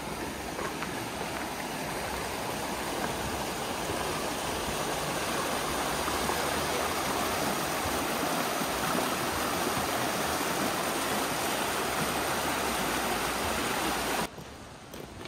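Fast-flowing mountain creek rushing over rocks: a steady hiss of running water that grows a little louder through the middle, then cuts off abruptly near the end.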